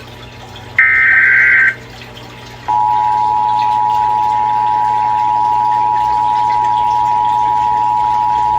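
Emergency Alert System test tones. About a second in comes a short warbling data burst of SAME header tones, the last of a series. A little under three seconds in, the steady two-tone EAS attention signal (853 and 960 Hz together) begins and holds.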